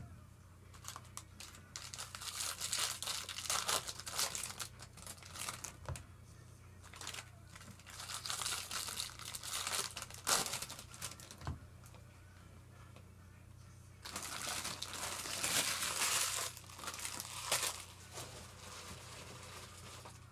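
Trading-card pack wrappers being torn open and crinkled by hand, in irregular bursts of rustling with short pauses between.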